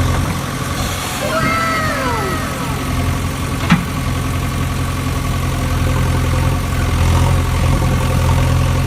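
Engine running steadily at idle, a low even hum. Between one and three seconds in, a few falling whistle-like sounds cross it, and a single sharp click comes a little before four seconds.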